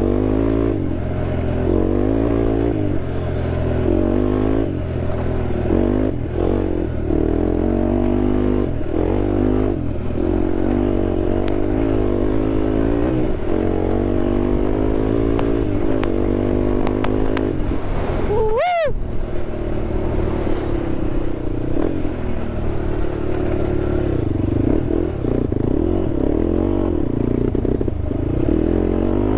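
Honda TRX sport quad's engine running under load on an off-road ride, its pitch climbing and falling again and again as the rider works the throttle and the gears. The sound breaks off for a moment about 19 s in.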